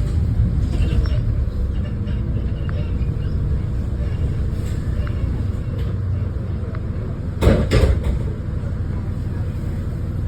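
Diesel bus engine running with a steady low rumble and a faint whine from the turbocharger, interrupted by two loud rattling knocks in quick succession about three-quarters of the way through.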